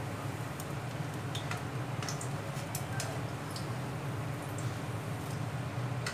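Thick kadhi simmering in a kadai, with bubbles popping in irregular soft clicks over a steady low hum.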